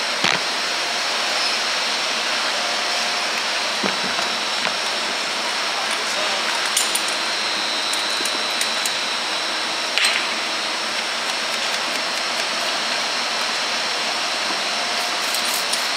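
Steady, even hiss and hum of brewery cellar equipment, with a few light knocks and clinks, including a quick run of them near the end.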